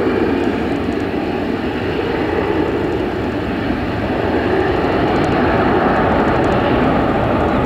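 Boeing 787-9 Dreamliner's jet engines running as the airliner rolls out along the runway just after touchdown: a steady, loud rumble and rush that grows slightly louder about halfway through.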